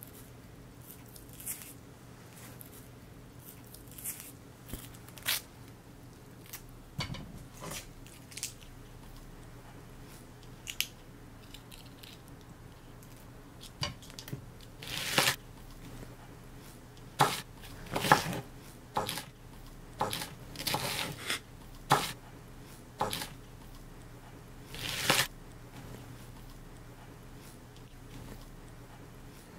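Onion being cut with a chef's knife on a wooden cutting board: irregular crunching cuts and knocks of the blade on the board, sparse at first and more frequent from about halfway through.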